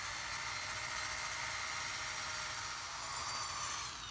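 Corded drill spinning a wire cup brush against a steel trailer hitch to scrub off loose rust. It makes a steady whirring hiss with a high whine, and the pitch shifts briefly near the end.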